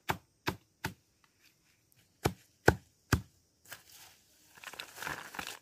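A large knife chopping a pile of fresh green leaves for livestock fodder on the ground: three quick chops, a pause, three more chops, then the rustle of a hand scooping up the cut leaves.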